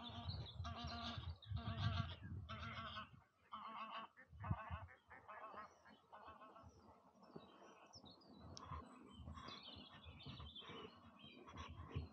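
Geese honking, a quick run of loud, repeated honks in the first three seconds, then quieter, scattered calls with high songbird chirps.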